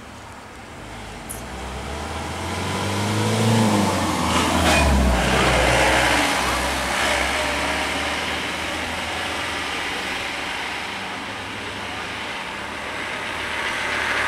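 Small road vehicle engines passing close: a motor scooter's engine grows louder and rises in pitch over the first few seconds, peaks, then runs on, and a small truck's engine swells near the end.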